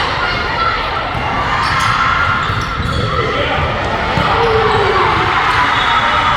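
Volleyball being hit and bouncing in a gymnasium, a few sharp ball contacts over steady crowd chatter and shouted calls echoing in the hall.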